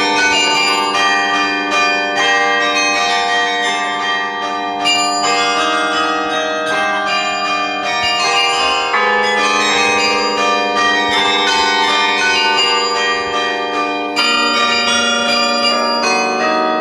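Carillon being played: many tower bells struck one after another and in chords, their tones ringing on and overlapping, loud and close at the top of the tower.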